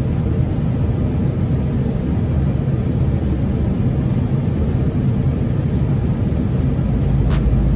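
Steady low rumble of an Airbus A320 heard on the flight deck, with one short sharp click near the end.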